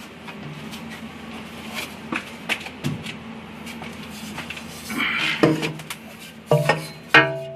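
Scattered knocks and clicks of metal parts and tools being handled over a steady low hum, with a louder clatter about five seconds in. Plucked guitar music comes in near the end.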